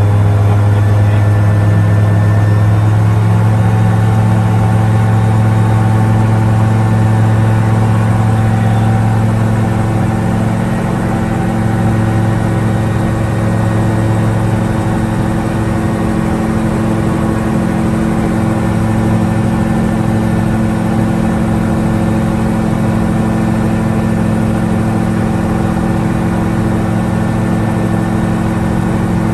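Magni M24 Orion gyroplane's Rotax flat-four engine running at takeoff power through the takeoff roll and climb-out, a loud steady drone. Its pitch shifts slightly about ten seconds in, and a rushing noise thickens under it after that.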